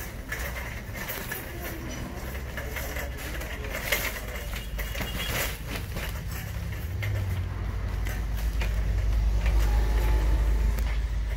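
Shopping carts rattling and clattering as they are pushed over tile and then rough pavement. A low rumble builds up in the second half.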